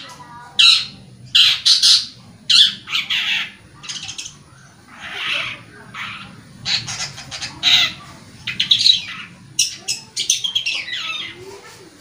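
Long-tailed shrike (cendet) giving a run of short, harsh, scratchy calls, about twenty of them at uneven intervals.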